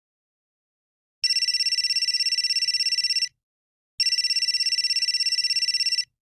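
Cell phone ringing with an electronic trilling ring: two rings of about two seconds each, a short gap between them, each a fast high warble.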